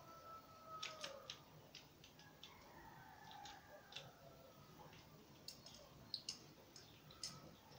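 Faint, scattered clicks and ticks of plastic and metal as a small LED ring light's head is worked onto its telescopic metal stand, with the sharpest clicks in a cluster about six seconds in.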